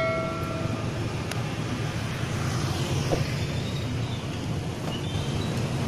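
Steady motor-traffic noise with a low engine rumble. A bell's ring fades out in the first second.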